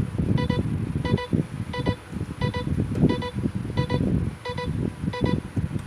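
A repeating electronic beep, short double pulses about three times every two seconds, over loud low rumbling background noise.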